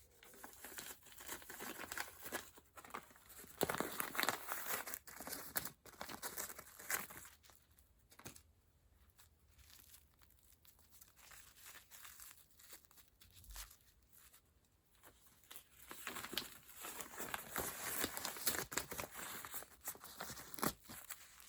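Packaging for a doll's outfit crinkling and tearing as it is unwrapped by hand, in bouts of rustling, quieter for several seconds midway.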